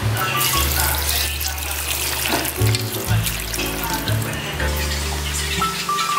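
Water pouring in a steady stream from a plastic measuring jug into an electric pressure cooker's inner pot, splashing over the ingredients, with background music playing underneath.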